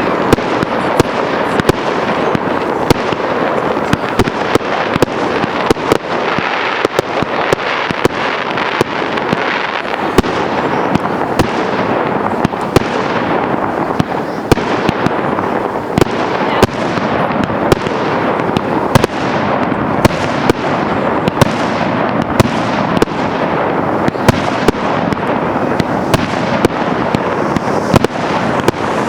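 A fireworks display firing continuously: a steady dense crackle with sharp bangs of bursting fireworks about one to two a second.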